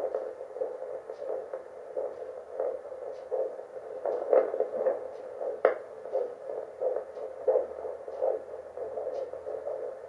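Handheld fetal Doppler's loudspeaker giving a regular pulsing beat, about one and a half pulses a second, over a faint steady hum: the mother's own heartbeat picked up through the probe while it searches for the baby's.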